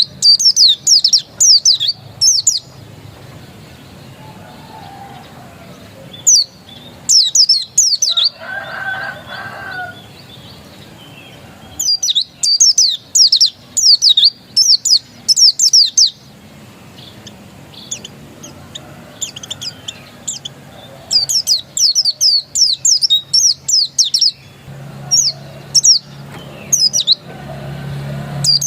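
A pleci dakun white-eye singing: bursts of rapid, high, downward-slurred twittering notes, each phrase lasting two to four seconds, repeated about five times with short pauses between. A low hum fills the pauses.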